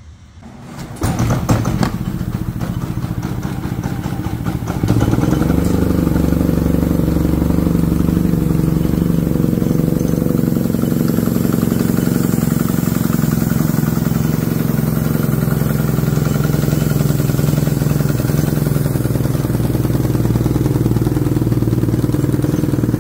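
Predator 3500 inverter generator's single-cylinder engine starting about a second in, then stepping up to a louder, steady run about five seconds in. It runs like it has no power and is choking out, because its exhaust spark arrestor screen is clogged with carbon.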